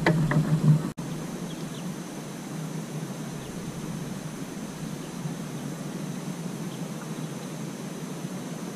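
Steady outdoor hiss of wind and open-water background on a small camera microphone, with a faint high steady whine running under it. A louder stretch of knocks and rustle in the first second cuts off abruptly.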